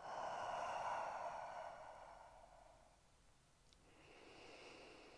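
A person breathing slowly and deeply: a long breath that starts sharply and fades over about three seconds, then a softer breath near the end.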